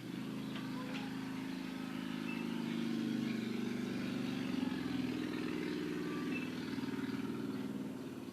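A vehicle engine passing by, growing louder to a peak around the middle and fading toward the end.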